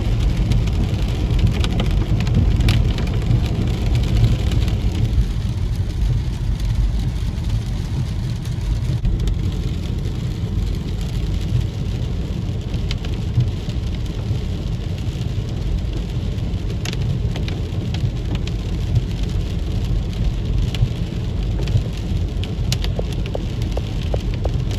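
Steady low rumble and hiss of road noise inside a moving car's cabin, with scattered faint ticks.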